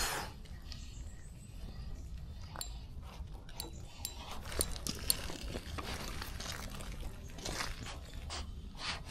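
Spinning rod and reel being handled: scattered small clicks and ticks from the reel and line, over a low steady rumble.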